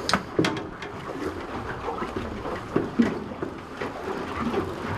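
Strong wind buffeting the microphone and choppy water slapping against a small boat's hull, with a few sharp knocks near the start and about three seconds in.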